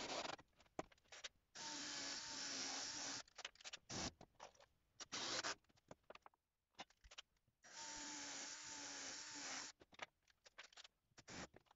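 Cordless drill-driver driving screws into a wooden bar: two runs of a steady motor whine of about two seconds each, the first a second and a half in and the second about eight seconds in. Between them, light knocks and scrapes of wooden bars being handled on the plywood.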